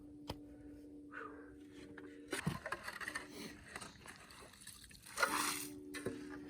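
Slush and water scraped and splashed out of a freshly chiselled hole in lake ice, in two bursts, about two and a half and five seconds in. A steady low hum runs underneath, breaking off before the first burst and returning near the end.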